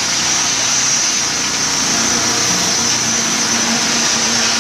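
Steady construction machinery running during a concrete pour, a constant engine-and-motor drone with a high hiss over it and a low hum that comes in about halfway through.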